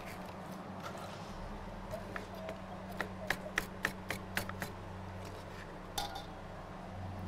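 Knife cutting through vegetables and tapping a cutting board: a run of sharp clicks in the middle, about three or four a second, with a low steady hum underneath.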